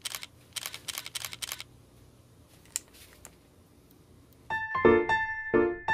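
Several quick camera shutter clicks in the first second and a half, then a bouncy piano-like keyboard tune starts about four and a half seconds in and is the loudest thing heard.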